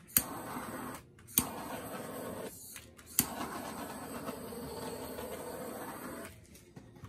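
Handheld butane torch clicking alight three times, each click followed by the steady hiss of the flame. The first two burns last about a second; the last runs about three seconds before it stops.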